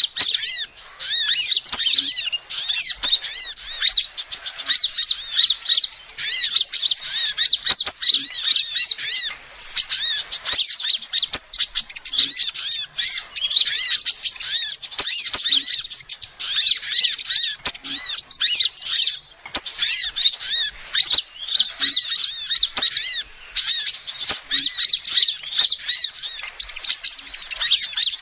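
Female sunbird (kolibri) calling in a fast, continuous stream of high, thin chirps, broken by short pauses every few seconds.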